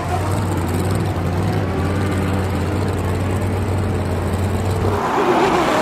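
Car engine sound under a rushing noise, with a steady low drone that drops out about five seconds in. A wavering squeal comes near the start and again near the end.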